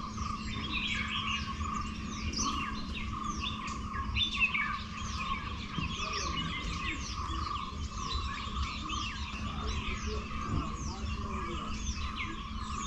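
Many wild birds chirping together in a continuous chorus of short, quick, falling notes. A steady high drone runs underneath.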